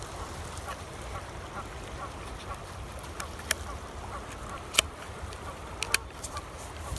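Steady rush of river water, with faint short calls repeating every half second or so and a few sharp clicks in the middle.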